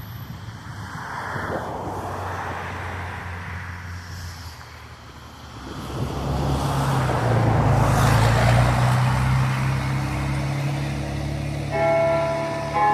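Road traffic: a car passes, its engine and tyres growing to their loudest about two-thirds of the way through and then easing off. Near the end, church bells begin to chime, two notes about a second apart, each ringing on.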